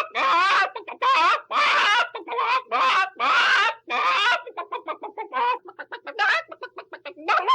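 Chickens squawking in drawn-out calls about half a second long, then breaking into a quick run of short clucks a little past halfway.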